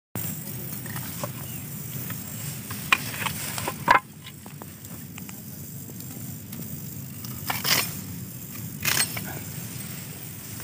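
Boundary netting being cut with a hand grass-cutting tool: scattered sharp snips and snaps over a rustle, the loudest about four seconds in, with more near eight and nine seconds.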